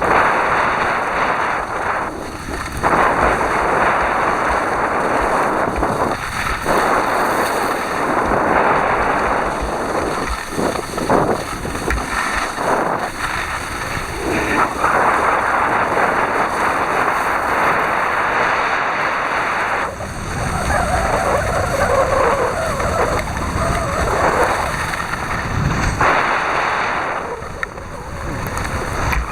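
Wind buffeting the microphone of a camera carried while skiing: a loud, rushing noise with low rumbling that swells and dips from moment to moment.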